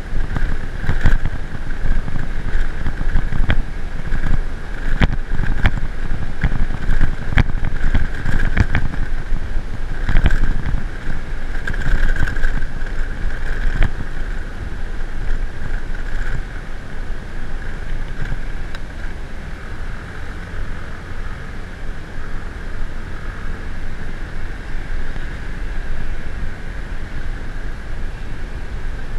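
A vehicle under way: a steady engine drone with wind rushing over the microphone, and a run of knocks and jolts in roughly the first half.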